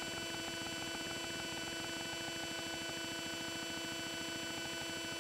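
Steady electrical hum and buzz with several held tones, unchanging throughout.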